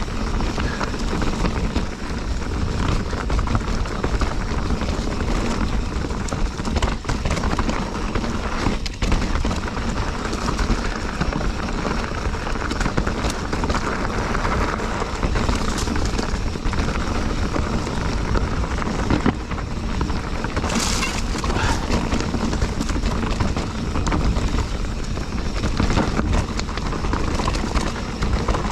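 Mountain bike rattling and clattering over rocky singletrack on a descent, with a steady low rumble of tyres and many small knocks and clicks from the bike.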